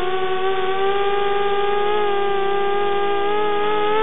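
Eachine 250 Racer quadcopter's electric motors and propellers whining in flight, several close tones running together and holding nearly steady in pitch with slight drifts.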